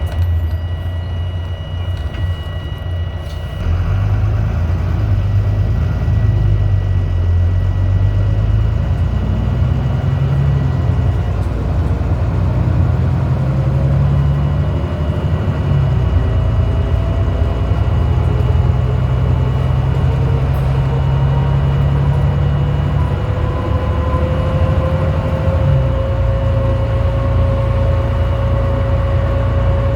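Interior sound of a Volvo B9TL double-decker bus's six-cylinder diesel engine and ZF Ecolife automatic gearbox. The engine note rises about three and a half seconds in as the bus pulls away, then the gearbox steps through its gears with a slowly rising whine. A constant high beep runs underneath, which the uploader blames on something loose, like a panel, at the back of the bus.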